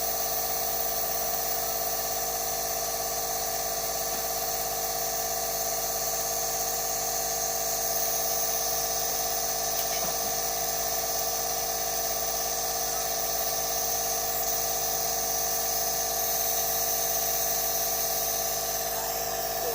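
Nebulizer compressor running steadily for asthma treatment, a constant motor hum with a high hiss of the mist.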